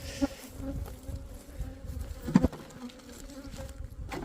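Honeybees buzzing in a steady hum, with a couple of short knocks about halfway and near the end.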